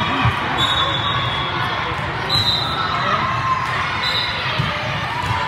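Echoing din of an indoor volleyball hall with several courts in play: balls struck and bouncing with dull thuds, over a background of players' and spectators' voices. A few short high-pitched tones come through over the din.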